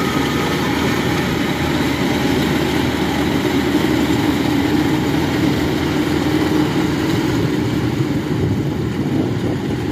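Kubota DC-95 rice combine harvester's diesel engine and machinery running in a steady, unbroken drone as the tracked machine crawls through a muddy paddy.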